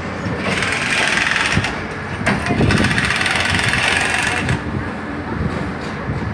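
STECOL track-laying machine (TLM) at work: a steady machine running sound with two loud hissing bursts, one of about a second near the start and a longer one of about two seconds in the middle.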